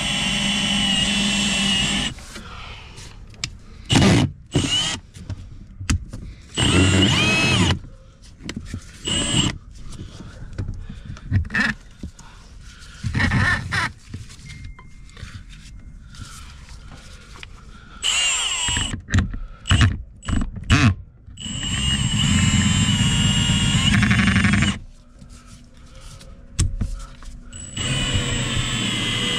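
A small power tool's motor running in repeated bursts, switched on and off many times, some bursts brief and some a few seconds long, with a steady high whine while it runs.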